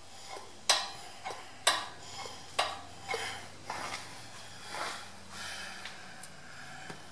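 Irregular sharp clinks and knocks of metal parts being handled on a workbench, about ten in all, the loudest two in the first two seconds.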